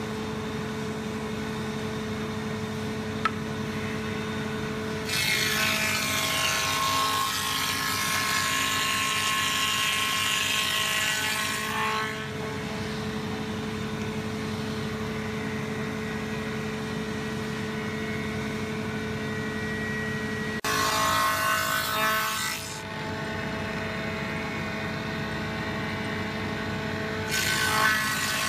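Small electric wood planer running with a steady motor hum, cutting louder three times as boards are fed through: a long pass of about seven seconds, a short one about two-thirds of the way in, and another starting near the end.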